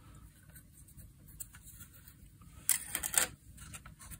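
Light handling of a projector's plastic and metal internal parts: a few faint clicks and taps, with a short cluster of louder clicking and clatter about three seconds in.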